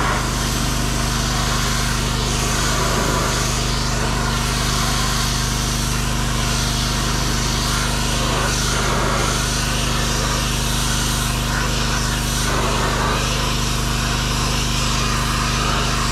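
Pressure washer running steadily: a constant engine hum under the dense hiss of the water jet spraying the underside of a hay mower.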